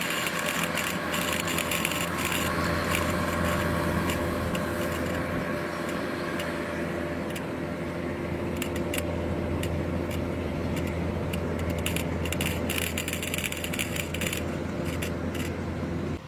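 Kubota tracked rice combine harvester running steadily while cutting and threshing: a constant engine drone under busy metallic rattling and clicking from the machinery.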